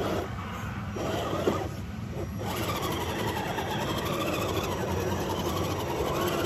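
Electric motor and gearbox of a scale RC crawler running under throttle as it works its wheels in a muddy, water-filled rut; the hum fills out and steadies from about two and a half seconds in.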